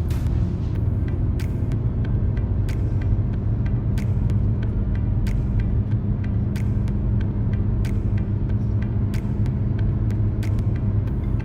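Background music with a steady beat over a heavy low rumble.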